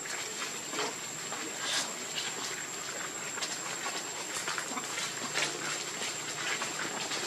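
Outdoor ambience dominated by a steady, high-pitched insect drone, with scattered short clicks and ticks throughout.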